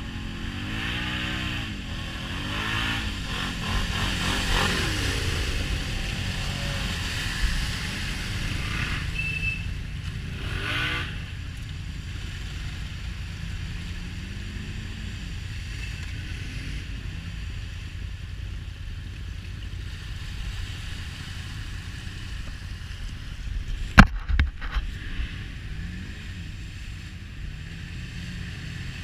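Off-road vehicle engine revving up and down over the first several seconds, then running on steadily at lower revs. A single sharp knock comes about 24 seconds in.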